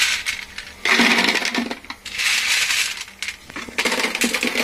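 Handfuls of dry, sun-dried potato vadis rattling and clattering as they are scooped off a steel plate and dropped into a plastic jar, in about three bursts.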